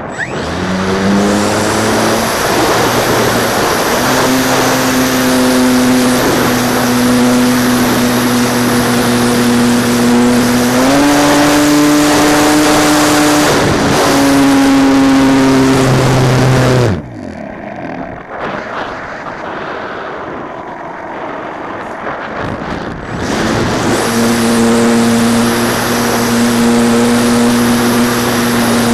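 Radio-controlled YAK-54 aerobatic model plane's motor running at high throttle with a steady buzzing tone. The pitch steps up about a third of the way in and eases back a little later. A bit past halfway the motor is throttled right back to a softer, noisier stretch, then comes back up to full power about four-fifths of the way through.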